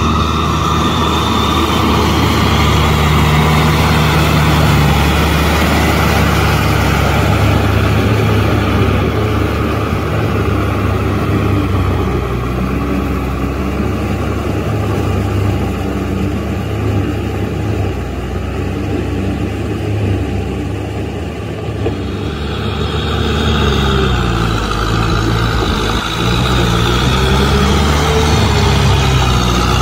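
Kubota M6040SU tractor's diesel engine running under load as the tractor pushes mud with its front blade through a flooded paddy. About three quarters of the way through, the engine note wavers up and down, then settles again.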